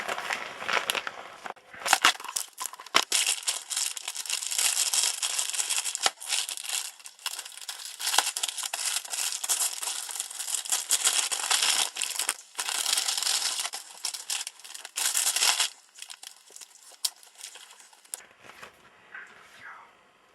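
Packaging being unwrapped by hand: dense crinkling and rustling with sharp crackles and tearing, which stops about three-quarters of the way through and gives way to faint handling clicks.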